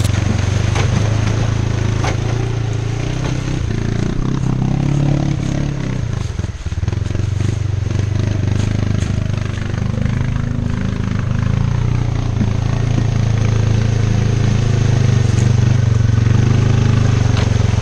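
ATV (four-wheeler) engine running steadily under load as it tows a loaded aluminium boat trailer through a flooded, muddy trail, with water splashing around the wheels; the engine sound dips briefly about six seconds in.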